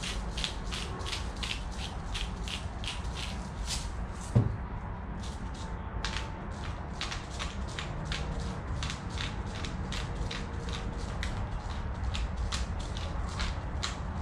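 Salt and pepper dispenser working seasoning onto a potato in a steady run of short crisp strokes, about three a second, with a pause of about two seconds in the middle. A single thump about four seconds in is the loudest sound.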